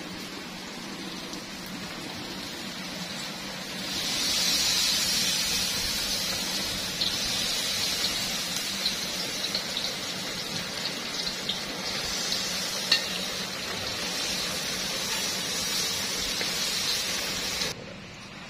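Breaded chicken fillets deep-frying in hot oil in a steel wok: a steady sizzle with a few sharp pops. It grows much louder about four seconds in and cuts off suddenly near the end.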